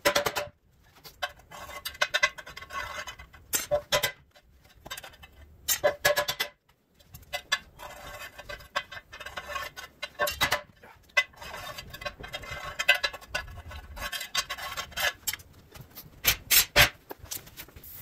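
A hammer striking a piece of rusty sheet metal on a concrete floor in irregular blows, with the metal scraping between strikes.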